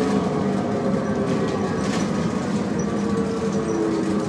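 Optare Solo single-deck bus heard from inside while moving: engine and drivetrain drone under several steady whining tones that drift slightly lower in pitch, the overall sound easing a little.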